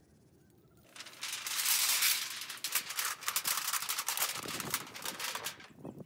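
Thin stainless-steel sheet crinkling and rattling as it is unrolled flat on gravel and rolled into a flue pipe, starting about a second in.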